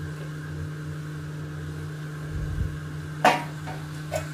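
A steady mechanical hum, with a sharp metallic clatter about three seconds in and a lighter knock near the end as the aluminium steamer pot and its lid are handled.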